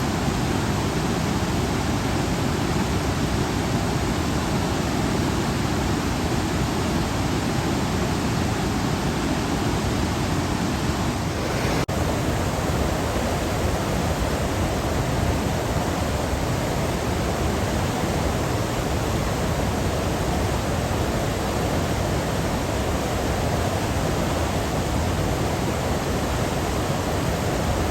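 Waterfall: a steady, loud rush of falling water, with a faint click about twelve seconds in where the sound shifts slightly.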